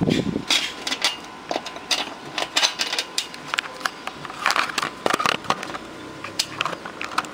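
Irregular clicks, taps and light knocks as parts and wires are handled inside an open metal amplifier chassis, with a heavier thump at the very start.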